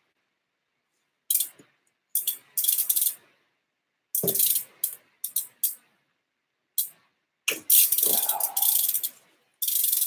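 Socket ratchet wrench clicking in short bursts as it is worked back and forth on a BMX bike's crank bolt, loosening the crank arm to take it off. Near the end the clicking becomes continuous.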